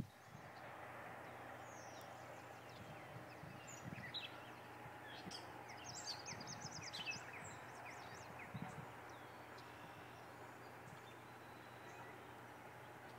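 Quiet outdoor ambience: a steady low hiss with small birds chirping, busiest from about three to seven seconds in, and a few soft low thumps.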